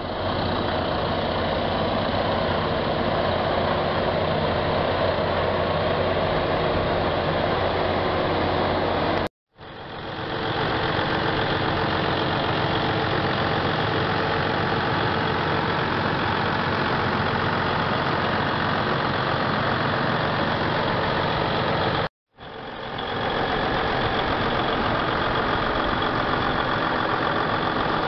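Freightliner 122SD truck tractor's heavy diesel engine idling steadily. The sound drops out briefly twice and fades back in.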